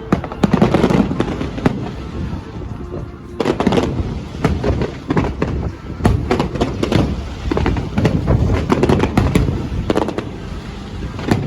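Aerial fireworks going off in a rapid, irregular string of bangs and crackles.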